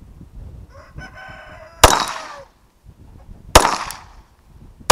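Two 9mm shots from a Bersa Thunder 9 semi-automatic pistol, about a second and a half apart, each with a short fading echo, and a third shot right at the end. A rooster crows in the background around the first shot.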